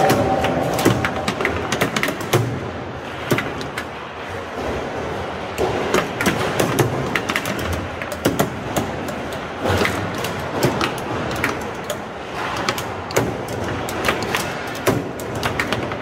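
Table football (foosball) in play: many sharp, irregular clacks and knocks as the ball is struck by the players and the rods are slid and spun.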